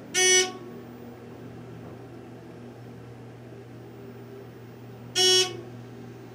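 Two short, loud electronic beeps from an elevator car, about five seconds apart, over a steady low hum.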